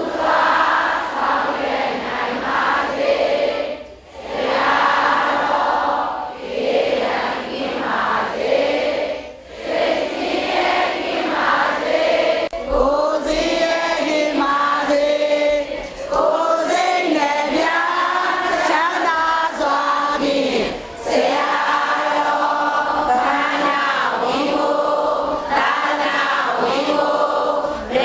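A group of voices singing a Burmese Buddhist devotional song together, with long held melodic notes.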